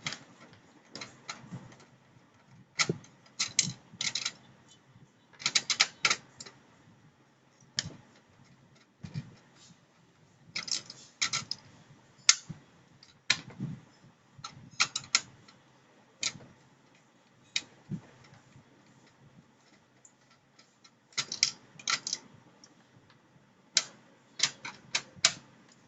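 Screwdriver working out the screws that hold the laser scanner unit inside an HP LaserJet P1102 printer: irregular clusters of sharp clicks and ticks with short pauses between them.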